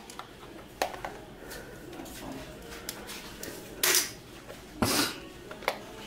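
Utility knife blade prying and scraping at the battery cover of a plastic remote control: a few sharp plastic clicks, the loudest about four and five seconds in.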